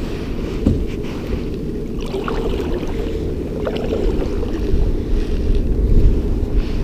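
Wind rumbling on an action camera's microphone aboard a kayak, a steady low buffeting with faint lapping water and small clicks over it.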